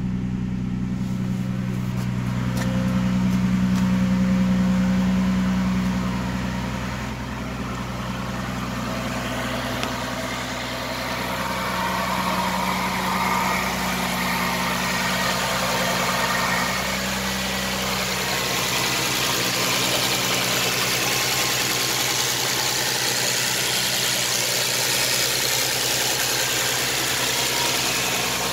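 Nissan GT-R's 3.8-litre twin-turbo V6 idling cold, just after starting, with a flex-fuel ethanol kit fitted. The idle hum swells briefly a few seconds in, then settles to a steady idle. From about ten seconds in, the brighter hiss and whir of the running engine bay comes up louder.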